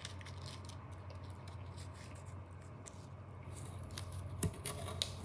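Sheet of paper being folded and creased by hand: faint scattered rustles and crinkles, with a sharper crackle about four and a half seconds in, over a steady low hum.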